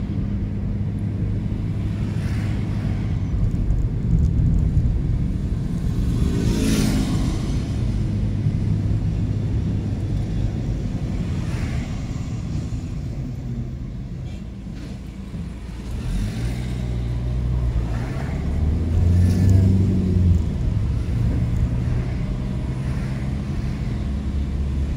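A car's engine and tyre noise heard from inside the cabin while driving along a city street. The engine note drops back a little past the middle, then climbs again as the car picks up speed. A brief louder swell comes about seven seconds in.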